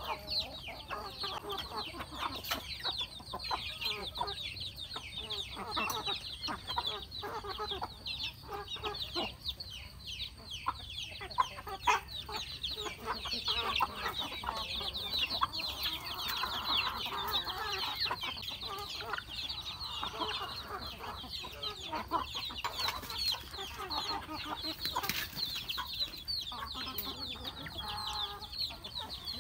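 A flock of chickens feeding: many chicks peeping in a dense, continuous high chatter, with hens and roosters clucking, most strongly in the middle, and short sharp ticks throughout.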